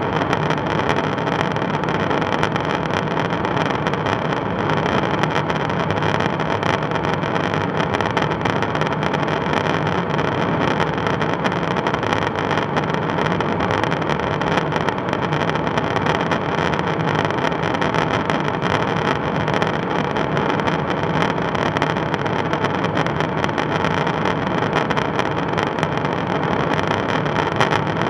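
Steady drone of airflow and engines inside the boom operator's pod of a KC-135 Stratotanker in flight, a constant rushing noise with a faint steady hum in it.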